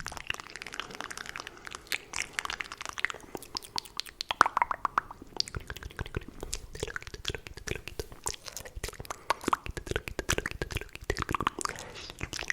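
Fast, aggressive ASMR mouth sounds close to the microphone: rapid wet clicks, pops and smacks of lips and tongue, many to the second.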